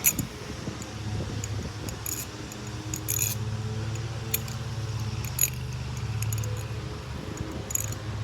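Balisong (butterfly knife) being dropped and caught in icepick grip, its free-swinging handles snapping against the blade's tang pins with sharp metallic clicks, singly or in quick pairs every second or two. A steady low hum runs underneath.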